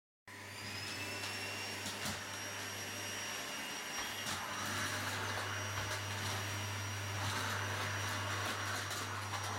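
Vacuum cleaner switching on about a third of a second in, its motor whine rising briefly in pitch as it spins up, then running steadily with a low hum. A few light knocks are heard as the nozzle moves.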